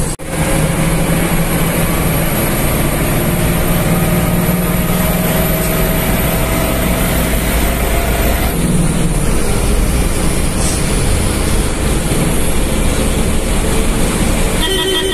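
Private bus's diesel engine running under way with road noise, heard from inside the cab. A fainter whine rises slowly and drops away about eight seconds in.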